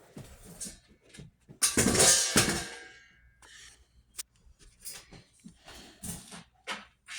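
Knocks, clicks and one loud clatter with a brief ringing tail about two seconds in, from handling a plastic Bissell upright vacuum cleaner to show its brush roll, motor off.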